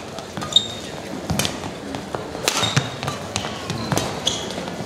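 Badminton rally: several sharp hits of rackets on the shuttlecock, with short high squeaks of court shoes on the court mat and the thuds of players' footwork and lunges.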